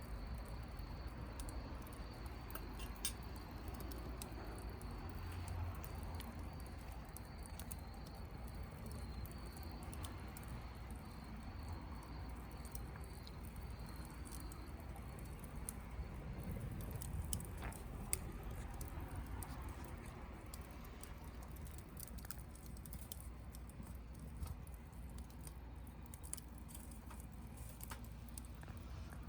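Wood campfire crackling: scattered sharp cracks and pops over a steady low hiss.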